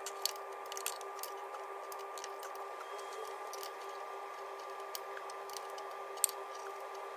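Scattered light clicks and taps of metal hand tools on the car's front suspension, over a steady thin hum. The sharpest click comes about six seconds in.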